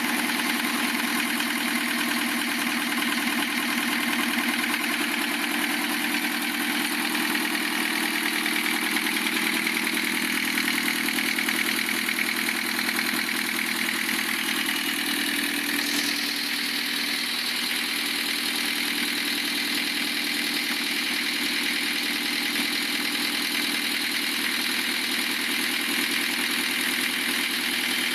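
Lancia Thema 2.5 TD's four-cylinder turbodiesel idling steadily with a knock from around the cylinder head. The engine has just been overhauled; the owner suspects a piston striking the cylinder liner or a valve, and settles on the piston.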